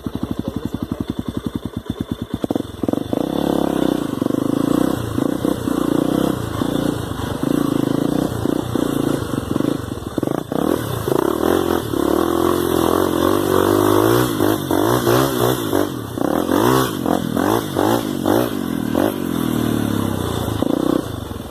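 Dirt bike engine ticking over evenly for the first couple of seconds, then revving up and down with the throttle as the bike is ridden over rough trail.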